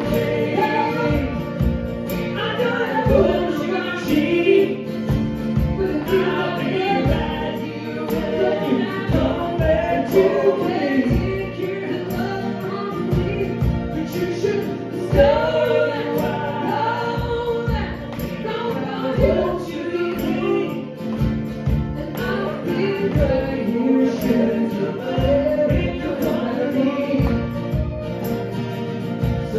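Live folk-rock band playing a song, with acoustic guitars, mandolin and a drum kit keeping a steady beat, and several voices singing together.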